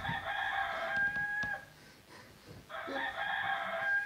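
A rooster crowing twice, each crow about a second and a half long, with a short pause between.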